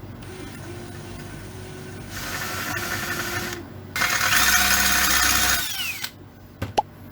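Power drill running in two bursts, the second louder, with a motor whine that rises as it spins up and falls as it winds down, likely working the aluminium build plate. A short sharp click near the end.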